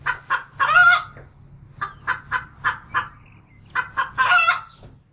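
Brown hens clucking and cackling: short clucks with a longer drawn-out call about a second in and again near the end, over a low steady hum.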